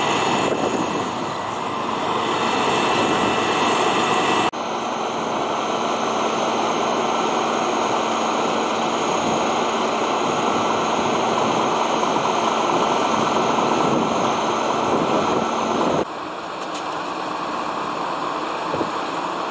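Fire engine's diesel engine running steadily with its pump engaged: a loud, even drone with a faint steady whine. The sound shifts abruptly about four and a half seconds in and again near the end.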